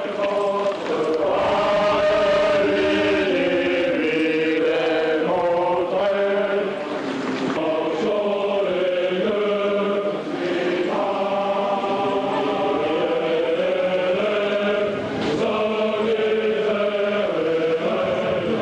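Paratroopers singing a military marching song in unison, many men's voices moving together from one held note to the next.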